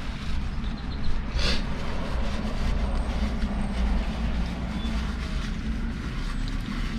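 Steady low vehicle rumble, heard from inside a car, with a brief hiss about a second and a half in.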